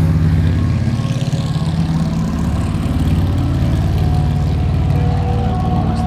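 Road traffic on the dam's two-lane road, with a vehicle passing about a second in, over a constant fluttering rumble of wind on the microphone.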